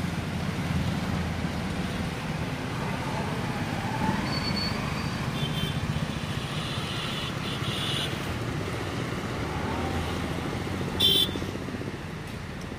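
Steady rumble of road traffic crossing the bridge, with a brief high-pitched beep near the end.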